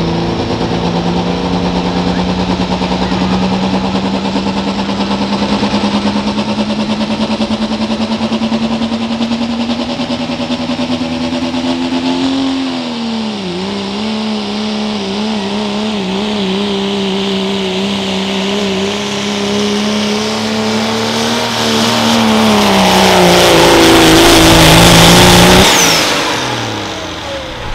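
Turbocharged diesel pickup engine under full load pulling a sled. Its pitch climbs slowly and then dips and wavers about halfway through. It drops again, and a loud hissing noise builds to the loudest point near the end. Then the engine cuts off sharply and winds down.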